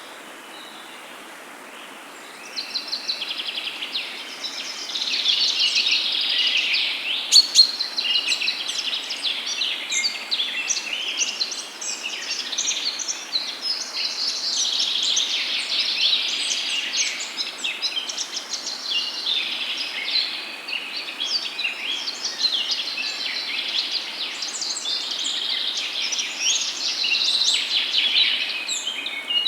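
A chorus of many songbirds chirping and singing at once over a steady low hiss. The birds come in about two seconds in, after a short stretch of the hiss alone.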